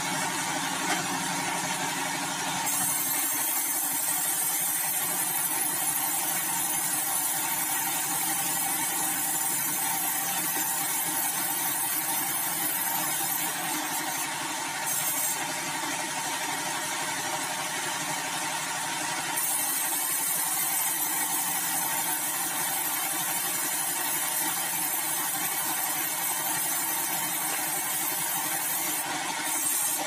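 Sawmill band saw running steadily while it cuts a log of bengkirai, a very hard tropical hardwood, on a rail carriage. A high hiss of the blade in the wood comes in about three seconds in, breaks off around twenty seconds and returns near the end.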